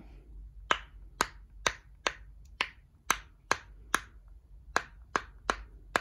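Silicone pop-it fidget toy being pressed bubble by bubble with a finger: a steady run of sharp little pops, about two a second, on the side that pops well.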